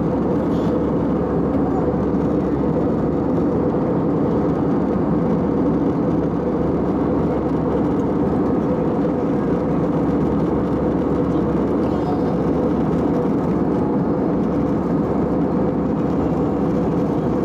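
Steady cabin noise of an Airbus A320-family airliner in cruise, heard from a window seat over the wing: jet engine and airflow noise as an even, unchanging hum and rush.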